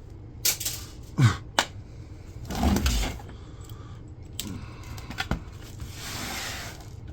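Small metal parts and hand tools being handled while a flat-screen monitor is taken apart: scattered clicks and clanks, a short rattle about two and a half seconds in and a scrape near the end, over a steady low hum.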